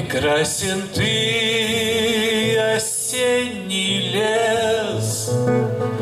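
Male voice singing a slow song in long held notes, accompanied by an acoustic guitar.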